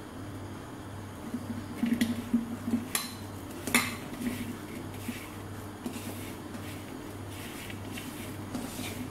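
Dried anchovies being rubbed and tossed with chilli powder by hand in a metal pan: dry rustling and scraping, with a few sharp clinks against the pan about two to four seconds in. A steady low hum runs underneath.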